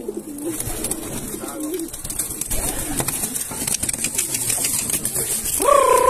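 Red domestic pigeons cooing in a loft, low wavering coos in the first couple of seconds, with scattered light clicks and a louder rising call near the end.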